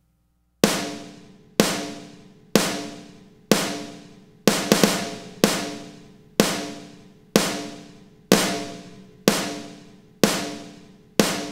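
Sampled rock snare drum hits triggered from a recorded snare track, about one hit a second, each ringing out briefly. About halfway through, three hits come in quick succession.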